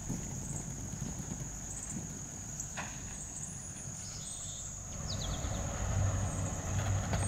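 Insects trilling, a steady high continuous chirr, over a low outdoor rumble. A low hum comes in about five seconds in.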